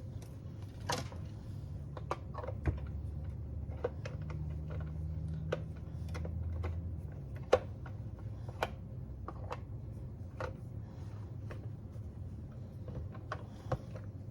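Irregular light clicks and taps of electric mixer beaters being fiddled with and pushed into their sockets, which won't seat because they are in the wrong sides. Under them is a low steady hum that grows stronger for a few seconds around the middle.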